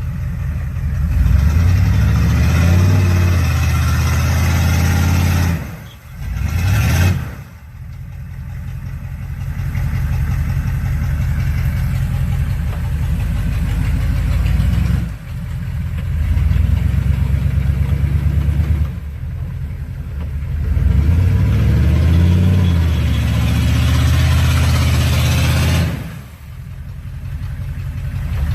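Off-road vehicle engine revving hard in long pulls, climbing in pitch a few times and dropping off sharply several times before building again.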